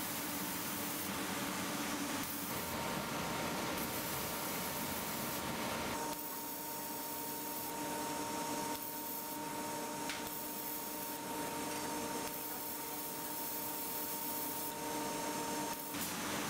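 MicroStep plasma cutting machine marking a steel plate with its plasma torch: a hiss that cuts in and out every second or two as the torch marks, over a steady machine hum with thin whining tones.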